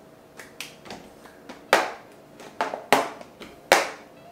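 About nine sharp taps at uneven intervals, the loudest three coming just under two seconds in, about three seconds in and near the end, over a faint steady hum.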